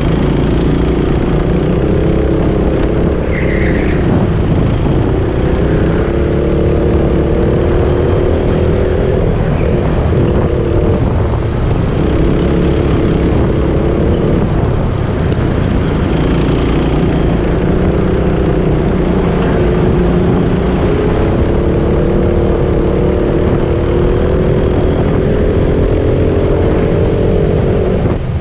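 Go-kart engine under way, heard from on board the kart: its pitch rises and falls with the throttle and dips briefly several times, over a steady low rumble.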